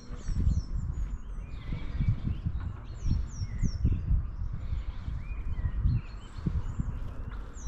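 Songbirds chirping, one repeating a high, falling call in quick groups of three, over low thuds of footsteps about twice a second.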